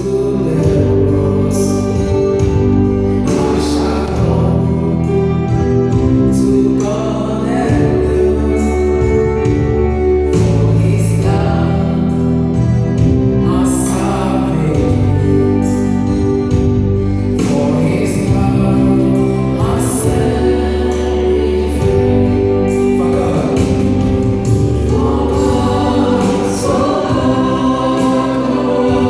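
Gospel music: a group of voices singing together over a steady bass and keyboard accompaniment, played through a PA system during a sound check.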